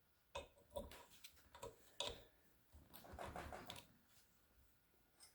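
Faint clicks and light taps of small sightglass parts (washers, gaskets and fittings) being handled, about six in the first two seconds, then a short rustle about three seconds in.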